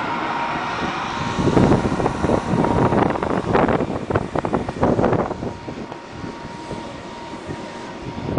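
The electric air blower of a large inflatable runs with a steady drone and a faint high whine. From about a second and a half in to about five seconds, and again near the end, uneven gusts of wind buffet the microphone.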